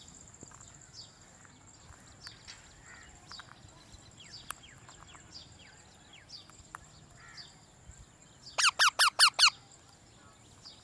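Birds chirping in short falling notes over a steady high-pitched whine; about three-quarters of the way through, a parrot gives a loud run of five rapid harsh squawks.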